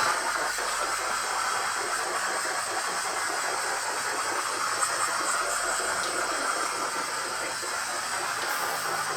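Powder coating gun spraying a silver base-coat powder onto a wheel: a steady hiss of compressed air and powder, held without a break.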